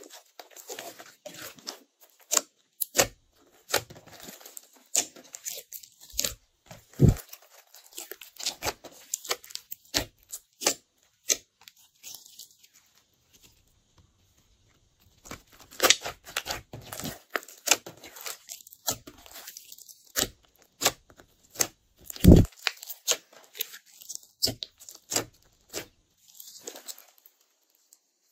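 Glossy slime being squeezed, stretched and folded by hand, giving irregular sticky pops, clicks and crackles, with a pause of a few seconds about halfway through.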